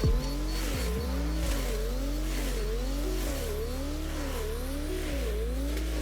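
Background music: a repeating swooping synth figure over held bass notes that step to a new pitch twice.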